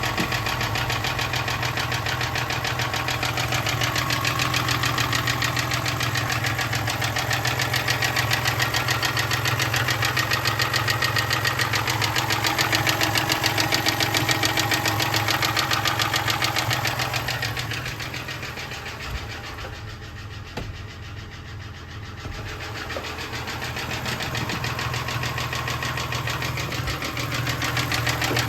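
1996 Toyota Tacoma's 3.4-litre 5VZ-FE V6 running at low rpm with a fast, steady knocking, which the owner takes for rod knock, with very low oil pressure. The sound drops quieter for several seconds past the middle, then comes back up.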